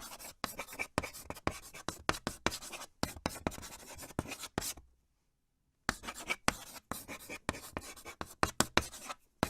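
Water dripping: quick, irregular drops, each a sharp tap, with a pause of about a second near the middle before the drops start again.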